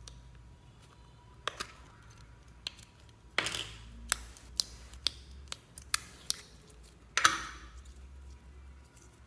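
Slime being worked by hand: a string of sharp pops and clicks, about two a second, with two longer squelching bursts near the start and near the end.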